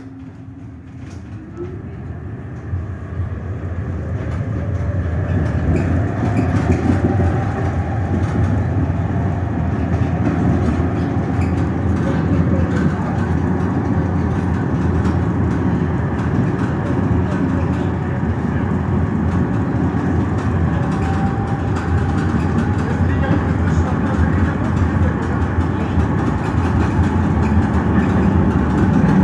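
Düwag GT6 articulated tram pulling away and gathering speed, heard from inside, with a whine rising in pitch over the first several seconds. It then runs steadily along the track with a constant rumble of wheels on rails.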